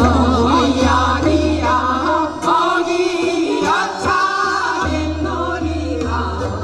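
A group of women singing a Korean folk song (minyo) together through microphones, with a wavering vibrato, over an instrumental backing with a steady bass and occasional drum strokes.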